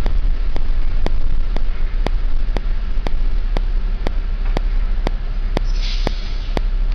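Steady low engine and road rumble heard from inside a moving bus, with faint regular clicks about twice a second. A short hiss comes near the end.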